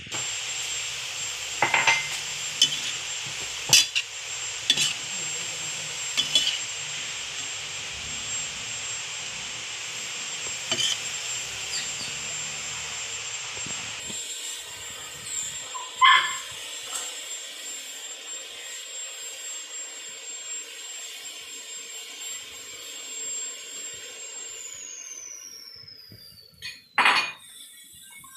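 Sliced bitter gourd (ampalaya) and egg sizzling in a stainless steel pan, the sizzle softer in the second half, with a metal utensil clinking and scraping against the pan now and then.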